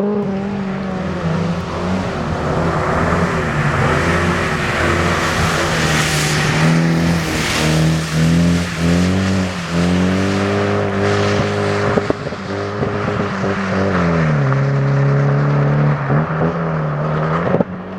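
Rally car at full stage pace, its engine revving up and dropping back repeatedly as it shifts gears, loudest about six to eight seconds in as it passes.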